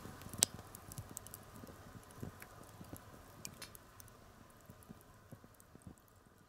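Wood fire of burning logs crackling, with scattered sharp pops over a low hiss. The loudest pop comes about half a second in.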